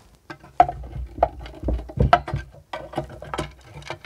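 Screwdriver prying and scraping at the aluminium cover of a base-station power-amplifier module: a rapid, irregular string of sharp metallic clicks and knocks with low bumping as the cover, stuck down with old thermal paste, is worked loose.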